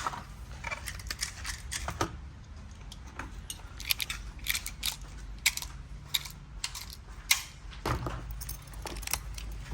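Irregular metallic clicks and small knocks from handling a Glock 19 pistol and its 9mm magazine, with no shots fired.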